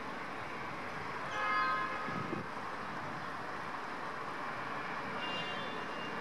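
Steady city background noise, with a short horn-like toot with several overtones about a second and a half in and a fainter high tone near the end.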